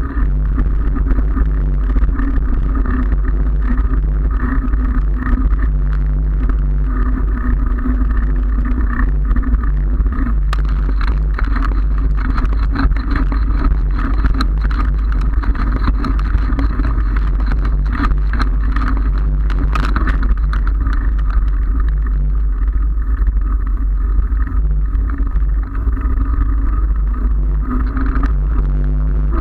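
Steady, loud ride noise from a bicycle moving over brick paving: the knobby tyre rumbling on the pavers, with heavy wind buffeting on the bike-mounted camera's microphone.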